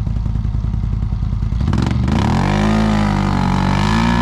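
ATV engine running at low revs with a pulsing rumble, then revving up sharply about two seconds in and held at high revs as the quad pulls through deep mud.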